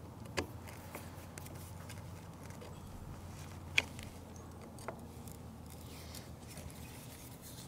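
A screwdriver clicking against a screw in a small outboard motor's lower-unit gearcase: three short clicks, the sharpest about four seconds in, over a faint steady background.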